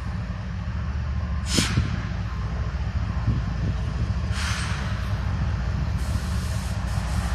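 CSX diesel freight locomotive approaching slowly with a steady low rumble, mixed with wind buffeting the microphone. Two short hisses break in, about one and a half seconds in and again about four and a half seconds in.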